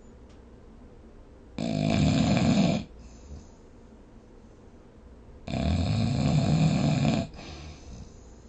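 Snoring: two loud snores about four seconds apart, the first about a second long and the second nearly two seconds, with quiet breathing between them.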